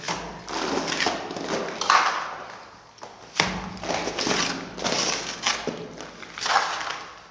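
Wet cement mortar being packed and smoothed by hand under a galvanised-iron modular electrical box set into a wall: irregular gritty scraping and rubbing, with a few sharper knocks.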